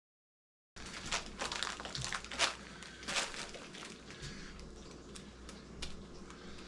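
Bags of picked raspberries being handled, crinkling and rustling. The sound starts abruptly under a second in, with the loudest crinkles in the first few seconds, then softer handling.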